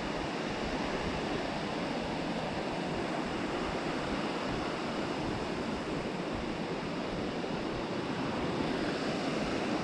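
Waterfall's steady rushing water, an even noise with no breaks.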